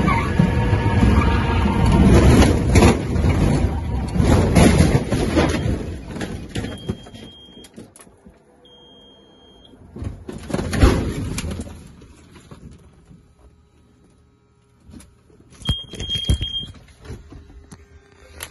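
Cessna 172 crashing after landing: loud engine and cabin rumble with repeated bangs and rattles for about six seconds as the plane goes out of control, dying away, then another heavy knock about eleven seconds in. After that it is much quieter, with a high electronic beep sounding three times.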